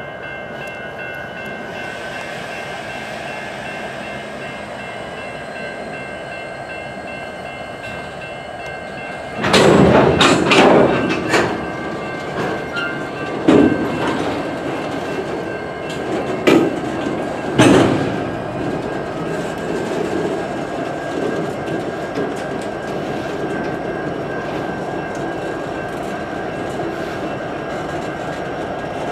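EMD 16-710 diesel locomotive prime mover running steadily, with a hum and several held tones. About a third of the way in come loud, noisy bursts lasting a couple of seconds, followed by three shorter sharp bursts, before the steady running resumes.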